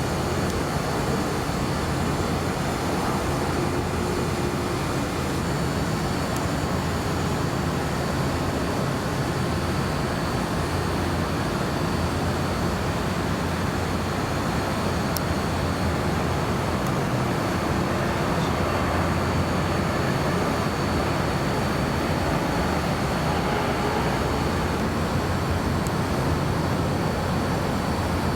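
Steady, even roar of jet aircraft engines heard at a distance, without a clear rise or fall.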